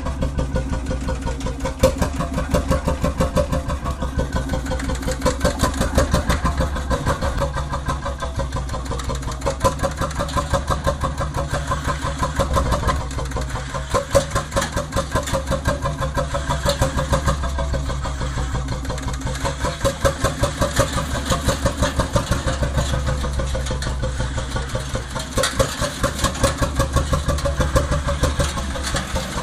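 Lanz single-cylinder hot-bulb two-stroke engine of an articulated steel-wheeled tractor running with a steady, rapid pop-pop beat while the tractor is driven slowly.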